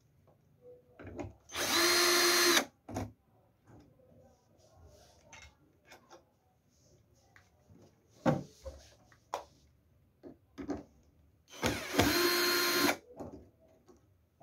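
Cordless drill-driver backing out bolts to take off the 150 A fuse. It runs in two short bursts of about a second each, a couple of seconds in and near the end, each a steady whine. Clicks and knocks of the tool and parts being handled fall between the bursts.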